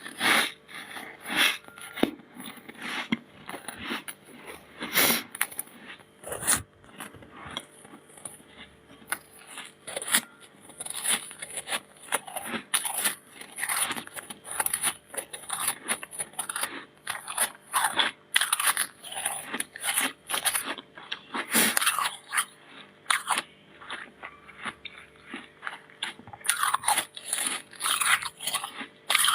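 Freezer frost being bitten and chewed close to the microphone: many irregular crunches in quick succession, loudest on the bites.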